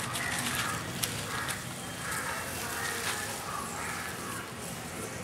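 Birds calling over and over in short calls, with a few sharp crackles of dry leaf litter.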